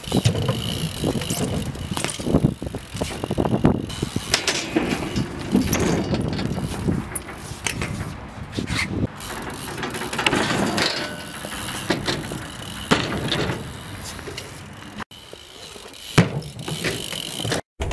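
BMX bikes riding and jumping on a concrete skatepark: tyres rolling on concrete, with frequent knocks and clatters of landings and bike parts. The sound changes abruptly about fifteen seconds in, where one clip is cut to the next.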